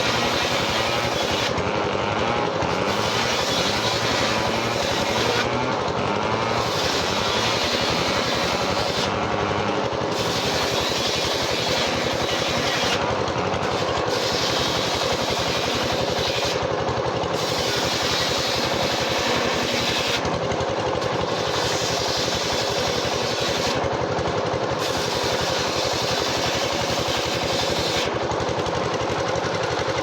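Sawmill machinery running without a break: a loud, steady mechanical din with a fast rattle.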